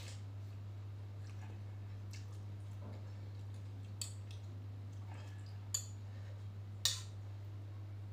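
Metal spoon and fork clinking a few times against a glass bowl of meatball soup, the sharpest click about seven seconds in, over a steady low hum.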